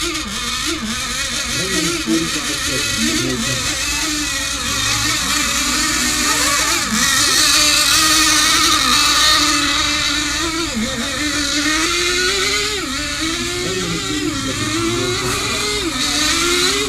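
Several nitro RC race boat engines running at high revs together, their overlapping high-pitched whines wavering up and down in pitch.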